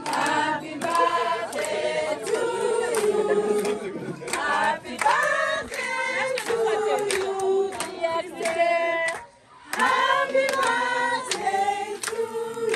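A group of people singing together to the birthday celebrant, with hand clapping through the song. The singing breaks off briefly about nine seconds in and then carries on.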